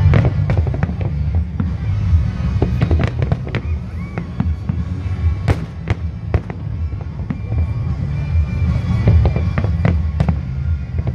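Fireworks bursting and crackling in quick, irregular succession over loud music with a heavy bass.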